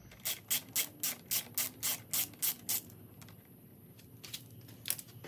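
Ratcheting Phillips screwdriver clicking as it backs out a panel screw, about four clicks a second for a few seconds, then a few scattered clicks near the end.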